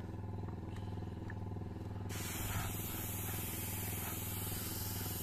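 Airbrush hissing with a steady flow of compressed air, starting abruptly about two seconds in, over the steady hum of a motor.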